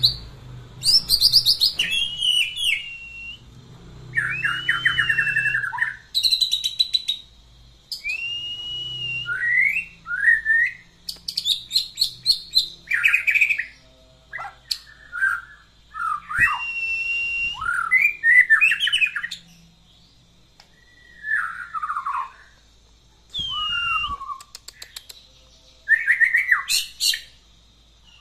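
White-rumped shama singing a long, varied song. Loud whistled phrases that slide up and down alternate with rapid stuttering trills and chatters, with short pauses between phrases.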